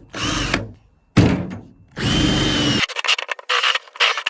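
A large handheld power drill drilling holes in the car's body panel for hood pins. It runs in three short bursts, its whine rising and falling with each, then gives a choppy stuttering run of quick pulses near the end.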